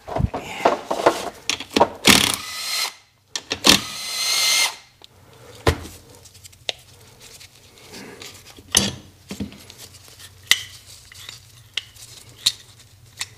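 Cordless drill running in two short bursts, about two and four seconds in. After that, small metal parts of a starter motor click and clink as they are handled and taken apart.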